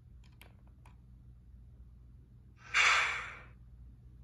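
A few faint clicks, then a short, loud hiss of air that fades within a second, from the Proto-Sound 3.0 sound system of an MTH HO-scale GE ES44AC model diesel locomotive. A faint low hum runs underneath.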